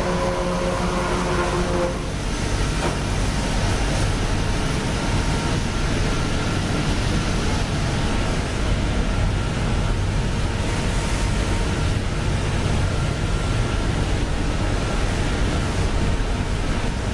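Textile recycling opening-machine line running: a steady, dense mechanical roar with a low hum underneath. A few steady tones in the noise stop about two seconds in.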